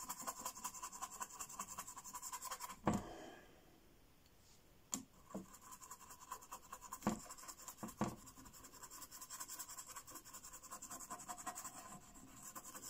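A small paintbrush scrubbing acrylic paint onto a painting board in a rapid, scratchy patter of short strokes. It eases off briefly about three seconds in, and a few louder knocks stand out.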